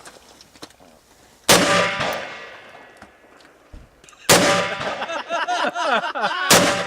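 Three loud rifle shots, about 1.5, 4.3 and 6.5 seconds in, each followed by the ringing of a hit steel target. After the second shot the ringing warbles in pitch for a couple of seconds as the steel plate swings.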